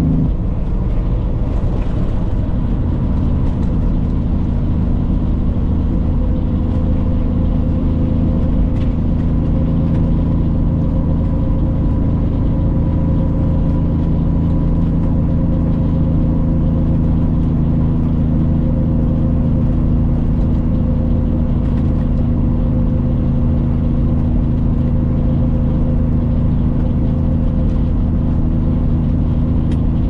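Tractor-trailer's diesel engine droning steadily under way, with road rumble. The engine note shifts about a second in, then holds even.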